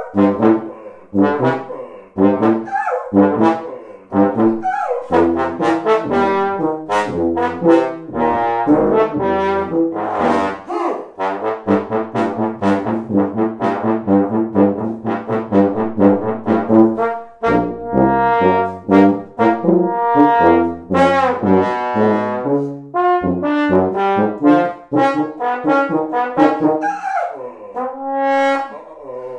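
Tuba and trombone playing a duet: short separate notes at first, then longer held notes, with a sliding note near the end.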